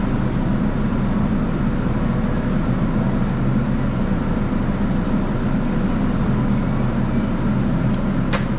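Steady mechanical hum of a walk-in dairy cooler's refrigeration fans, with one sharp click near the end.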